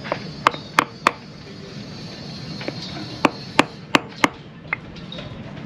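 New front oil seal being tapped into a boat engine through a piece of wood: three sharp taps about a third of a second apart, a pause, then a run of about five more.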